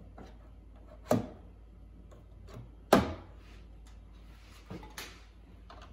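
Parts of a countertop hydroponic garden, its metal light pole and plastic body, knocking as they are handled: two sharp knocks nearly two seconds apart, then two lighter ones near the end.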